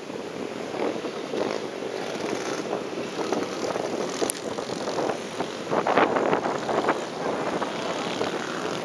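Engines of several small junior motocross bikes revving as a pack of riders comes along the track, growing louder about six seconds in as the bikes pass close.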